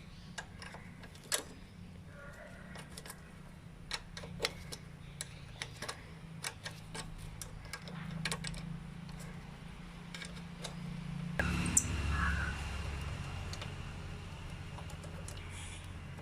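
A spanner working a 10 mm nut loose on a motorcycle's ignition coil mounting: irregular light metal clicks and taps. A steady low hum runs underneath, and a louder low rumble starts abruptly about eleven seconds in.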